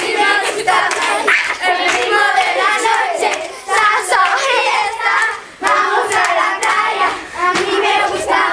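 A group of children singing and calling out together, with hand claps among the voices.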